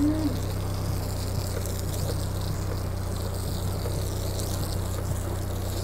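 A hose nozzle sprays a jet of water onto a car's windshield, giving a steady hiss over a steady low hum.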